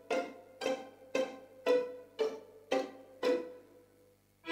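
Sampled violin section in a software string library playing one note over and over with the col legno articulation (strings struck with the wood of the bow). The notes are short, dry and die away quickly, about two a second, and stop near the end.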